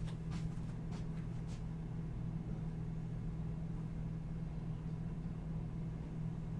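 Room tone: a steady low hum, with a few faint light clicks in the first second and a half.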